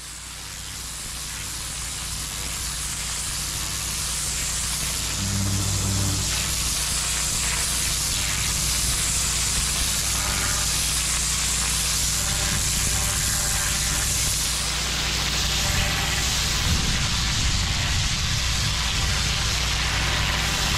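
A pressure washer's high-pressure jet hissing steadily as a lance blasts dirt off brick block paving, over the steady hum of the machine's engine. The sound fades up over the first few seconds.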